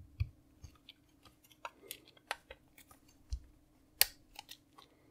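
Scattered small clicks and taps of a 20 MB notebook hard drive and its plastic mount being handled and worked with a screwdriver, with one sharper click about four seconds in.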